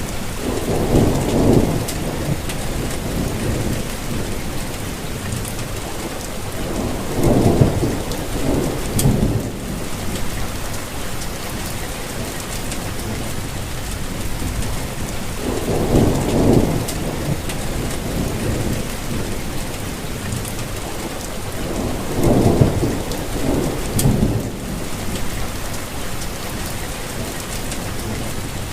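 Steady rain hissing, with low rumbles of thunder swelling up and dying away four times.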